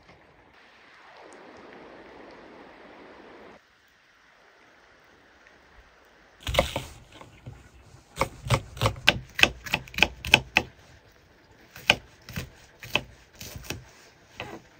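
Knife chopping on a cutting board: one heavy chop about six and a half seconds in, then quick runs of chops, several a second, with short pauses between. Before that comes a few seconds of steady rushing noise.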